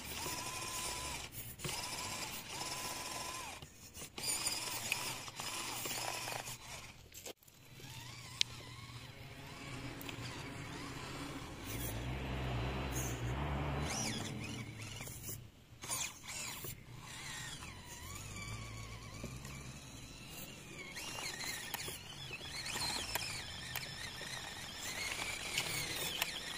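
Small electric motor and gear train of a 1/24-scale RC crawler whining and grinding, with clicks and creaks. The whine holds steady with brief breaks at first, then wavers up and down in pitch near the end.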